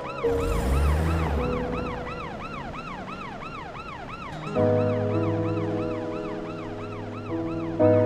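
A siren wailing in fast up-and-down sweeps, about two and a half a second, over background music with held chords that change about halfway through and again near the end. A brief low rumble with a rush of noise comes in the first second.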